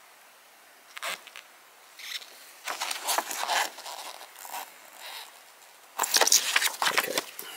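A folded paper poster being unfolded and handled, crinkling and rustling in short bursts, with the loudest handling near the end.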